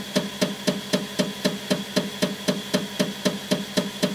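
Up Mini 3D printer's extruder clunking rhythmically, about four times a second, as it tries to push filament through a blocked extrusion head: the 'clunk clunk clunk' fault of a clogged extruder.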